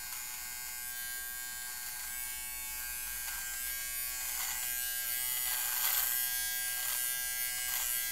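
Aprilla ATR-7011 hair and beard trimmer buzzing steadily as its blades, set to a longer comb guard, run through a thick beard; a rasp of clipping hair comes and goes about once a second from about three seconds in.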